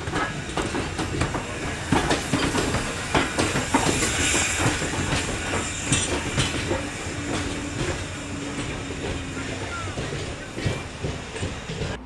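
Strasburg Rail Road No. 90, a 2-10-0 steam locomotive, rolling slowly past close by, its steel wheels clacking over the rail joints in quick, uneven clicks.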